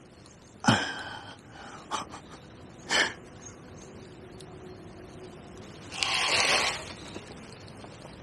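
A man's sharp gasps and heavy breaths of effort as he strains against a hard-fighting fish: short gasps about a second in and around three seconds, then a longer, noisier exhale a little after six seconds.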